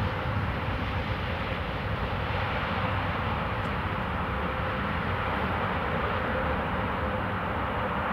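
Emirates Boeing 777-300 jet airliner's engines on arrival, a steady, even jet noise with a faint steady hum running through it.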